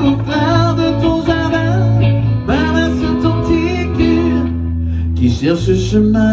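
Live music: guitar over a steady bass line, with a melody line above it, with a short break about five seconds in.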